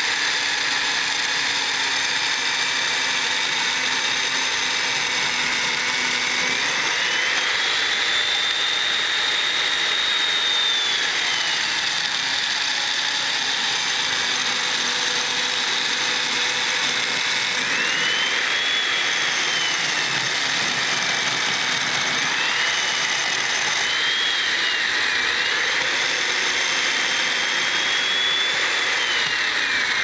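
Electric chain mortiser running and cutting a mortise into a timber beam. Its motor whine rises in pitch several times, as the chain eases out of the wood, then drops back as the chain bites in again under load.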